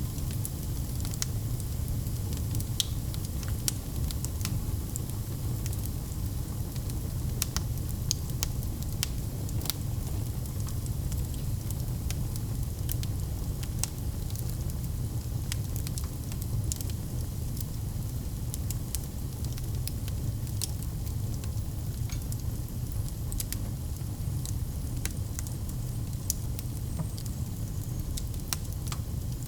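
Wood fire burning in a fireplace: a steady low rumble of the flames with frequent sharp crackles and pops scattered irregularly throughout.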